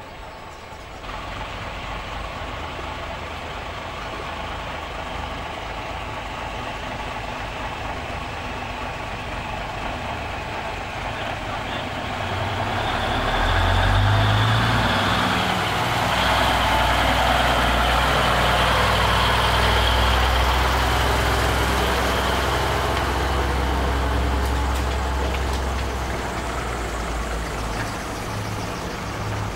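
Heavy diesel lorries, a Seddon Atkinson and then an ERF, moving past at low speed. A deep engine rumble swells about halfway through, is loudest soon after, and stays strong until near the end.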